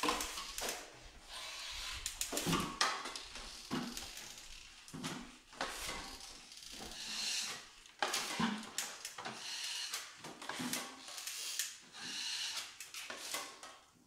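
Drywall finishing trowel scraping joint compound off a hawk and skimming it onto ceiling joints: a run of scraping strokes, roughly one a second, with short clicks of metal on metal.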